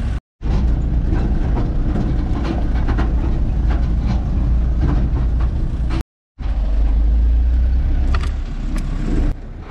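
Lorry engine and road rumble heard while riding on the lorry, a loud steady low drone with noise above it. It drops out suddenly twice, briefly.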